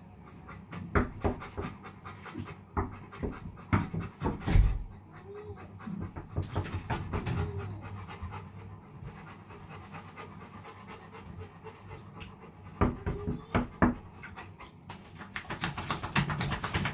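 A big dog panting, with scattered knocks and rustles, and a burst of hiss near the end.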